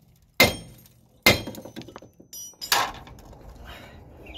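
Hammer striking a Mercury Villager's steering knuckle three times, sharp metal-on-metal blows with a brief ring, to shock the lower ball joint's stud loose from the knuckle. A light metallic clink falls between the second and third blows.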